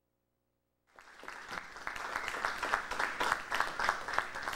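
Silence, then about a second in an audience breaks into applause, many hands clapping steadily.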